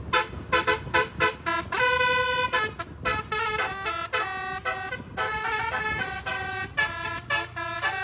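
Miniature bus's telolet Basuri horn playing a quick melody of short tooted notes, with one note held for almost a second about two seconds in.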